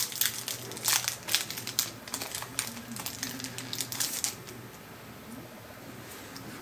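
Foil Yu-Gi-Oh! booster pack being crinkled and torn open by hand: a quick run of sharp crackles that dies down about four seconds in.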